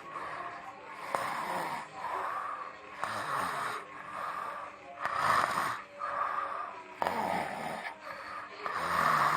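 A person snoring in a steady rhythm, roughly one snore every second.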